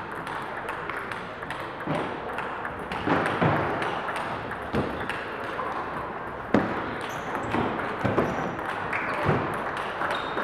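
Table tennis balls clicking sharply off bats and tables in rallies, with clicks from several tables overlapping over a steady hall background noise.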